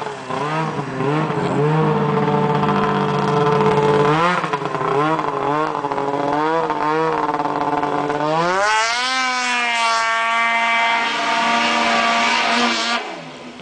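Snowmobile with an MBRP aftermarket exhaust can, its engine revving up and down as it skims across water, then climbing in pitch about eight seconds in and holding at high revs for several seconds before falling away near the end.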